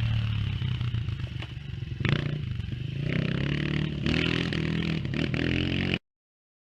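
A small petrol engine running, its pitch rising and falling as it revs, with some clatter, then cutting off suddenly near the end.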